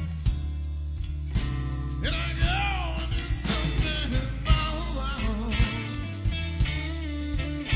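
Electric blues band playing between sung lines: electric guitar, bass and drums, with a lead line that bends up and down in pitch a couple of seconds in.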